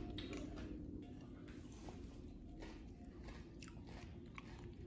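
Faint chewing and mouth sounds, with a few light clicks scattered through, over a low steady background hum.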